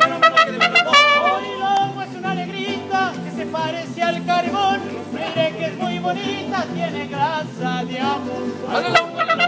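Mariachi music: trumpets play for about the first second, then a violin carries the melody with a wavering vibrato over low bass notes. The trumpets come back in near the end.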